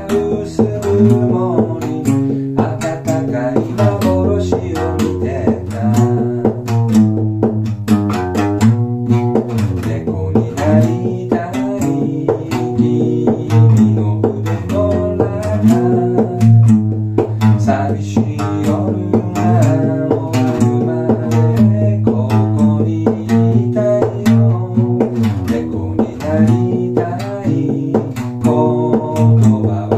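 A Morris acoustic guitar strung with a single string, plucked continuously to carry a deep, bass-heavy line and melody.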